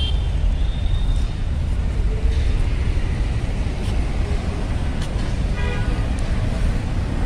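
City road traffic: cars and motorbikes passing with a steady low rumble, and a brief horn toot about six seconds in.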